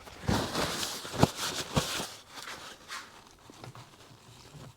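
Small clicks and knocks with some rustling as engine parts are handled on the workbench. The sharpest taps come between one and two seconds in, and the sound dies down toward the end.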